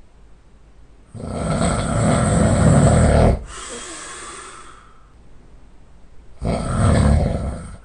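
A sleeping person snoring heavily. A long, loud snore starts about a second in and cuts off abruptly, followed by a quieter breath. A second loud snore comes near the end.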